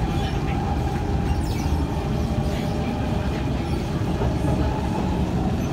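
Kawasaki Heavy Industries C151 train running at speed between stations, heard from inside the car: a steady low rumble of wheels on track with a constant hum above it.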